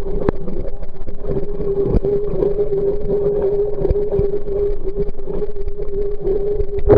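Old Brastemp Luxo washing machine running: a steady motor hum over a low rumble, with a few sharp knocks.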